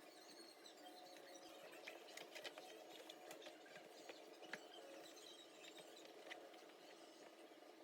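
Faint, scattered small clicks and light rubbing of hand-cleaning inside a refrigerator, over a low steady background hum.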